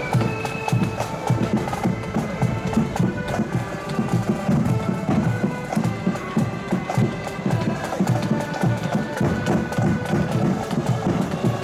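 Marching accordion band playing a tune: accordions sustain the melody over a steady drum beat.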